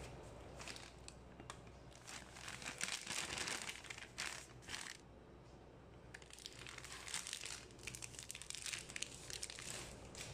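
A flour bag crinkling and rustling as flour is tipped out of it into a bread machine pan. It comes in spells of rustling, with a short pause about halfway through.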